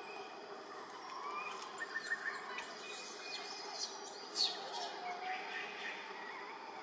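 Wild birds chirping and whistling, a scatter of short high calls that bunch together in the middle, over a steady faint background hum.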